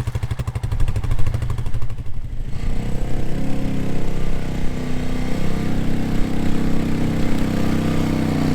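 Quad bike (ATV) engine idling with an even, rapid putter, then revving up and running harder and louder from about a second in, holding steady under load.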